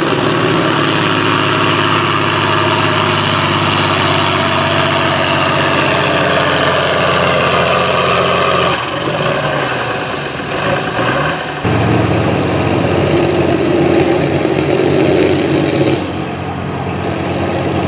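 Farm pulling tractor's engine running hard under load. It sags a little about nine seconds in and comes back abruptly about twelve seconds in.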